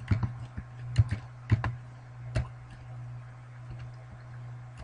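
Scattered clicks of a computer keyboard and mouse being used, a few single strokes in the first couple of seconds, over a steady low electrical hum.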